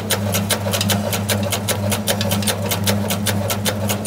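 Electric meatball-forming machine running: a steady motor hum with rapid, even clicking, about seven clicks a second.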